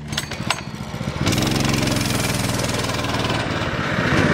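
Baja Warrior 200 mini bike's 196cc single-cylinder four-stroke engine being pull-started: a yank of the recoil cord, then the engine catches about a second in and runs steadily, getting louder near the end.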